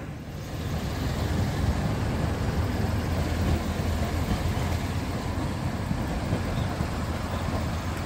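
Steady low rumble of street traffic and a city tram running away along its tracks.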